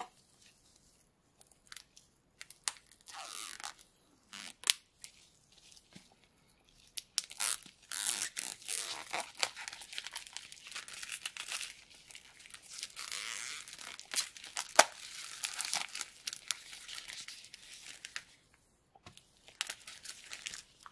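Plastic wrapping on a small product box being cut with a cutter and torn off: scattered clicks and short scrapes at first, then a long stretch of crackly tearing and crinkling, with one sharp click in the middle of it.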